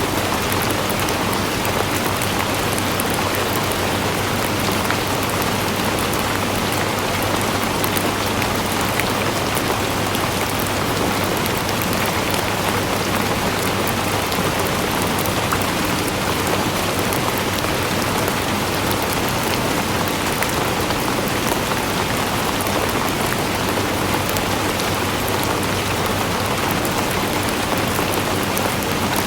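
Steady, heavy rain falling, a dense even hiss with fine patter of drops on surfaces.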